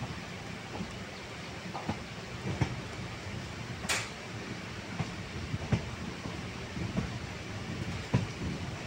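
Passenger express train running, heard from an open coach window: a steady rumble of wheels and rushing air, with wheel clicks over rail joints about once a second and one sharper click about halfway through.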